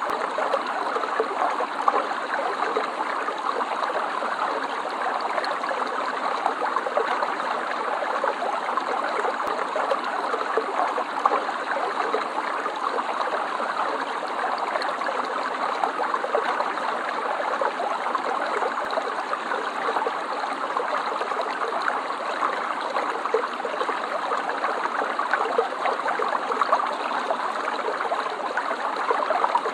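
Stream water flowing and trickling steadily, a dense even babble with small splashes and gurgles.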